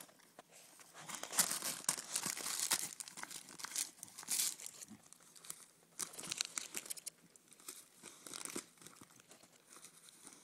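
A boxer dog tearing and crinkling gift wrapping paper with his teeth, ripping at the wrapped present in repeated bursts.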